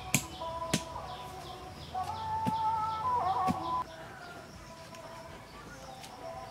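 A digging blade chops into dry soil a few times, with sharp knocks in the first second. A bird's drawn-out wavering call, the loudest sound, runs from about two seconds in to nearly four, over faint steady background chirping. Soil is scooped out of the hole by hand near the end.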